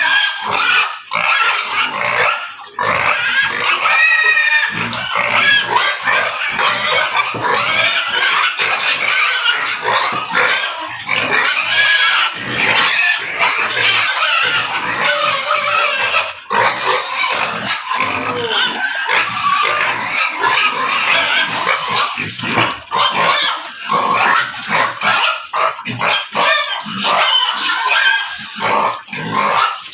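Several pigs calling at once: a continuous, dense jumble of overlapping high-pitched squeals with lower grunts underneath.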